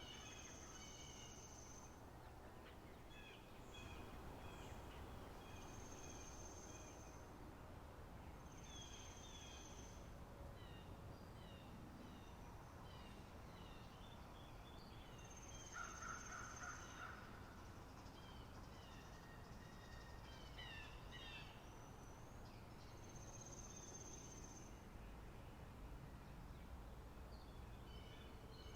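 Faint spring meadow bird chorus: several songbirds chirping and trilling, with a thin, high note that recurs every few seconds and a short lower call about halfway through.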